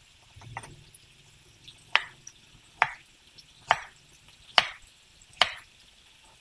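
Kitchen knife chopping a kohlrabi into chunks on a round wooden chopping board. Six crisp strokes come a little under a second apart, each blade hitting the board.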